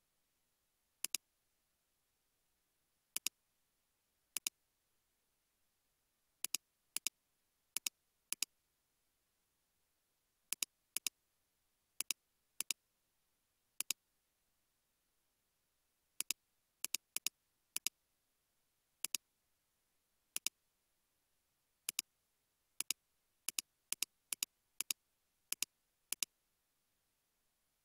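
Computer mouse and keyboard clicks: about thirty short, sharp clicks, singly and in quick pairs at irregular intervals, with near silence between them.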